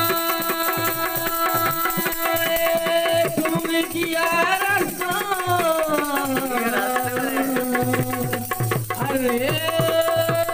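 A male singer holding long notes in a folk song, his voice sliding down through the middle, accompanied by steady hand strokes on a two-headed dholak drum.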